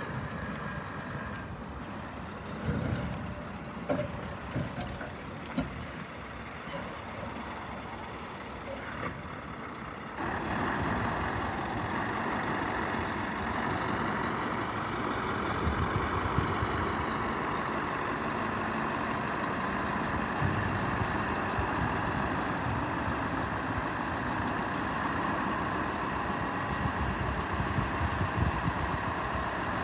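Scania R560's V8 diesel engine running as the tipper truck and its dump trailer drive at low speed, with a few short sudden sounds in the first several seconds. About ten seconds in the engine gets louder and stays that way, working under load as the rig pulls along.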